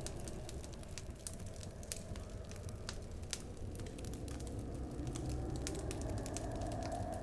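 Fire crackling: scattered sharp crackles and pops over a low, steady rumble.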